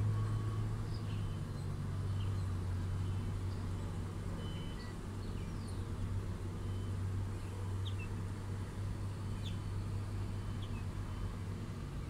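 Heavy truck's diesel engine idling steadily, a low even hum heard from inside the cab. Small birds chirp briefly now and then over it.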